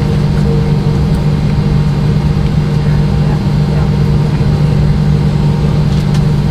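Steady cabin hum inside a McDonnell Douglas MD-90 taxiing, its rear-mounted IAE V2500 turbofans at idle: an even drone with a strong low tone.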